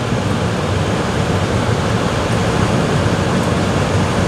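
Curry gravy boiling hard in a wok, a steady dense bubbling and spluttering over a high gas flame.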